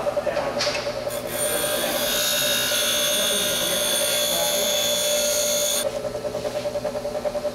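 Bench grinder running with a steady motor hum while a steel exhaust flange is pressed against its wheel. The grinding noise starts about a second in and stops just before six seconds, leaving the wheel spinning freely. The metal is being cleaned up where someone had earlier tried to grind or weld it.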